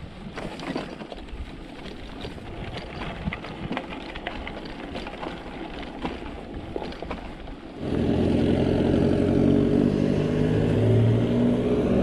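Bicycle rolling over a rough dirt track: tyre noise and small rattles and clicks, with wind on the microphone. About eight seconds in, it cuts abruptly to the louder, steady hum of a motor vehicle's engine.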